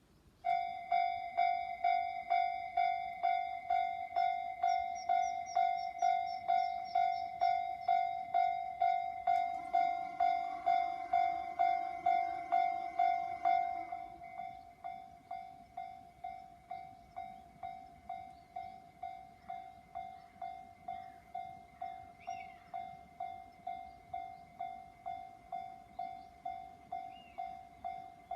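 Japanese railway level-crossing warning bell ringing, an electronic ding repeating about twice a second. It starts about half a second in and drops to a noticeably quieter level about halfway through. A lower sound joins it for a few seconds just before the drop.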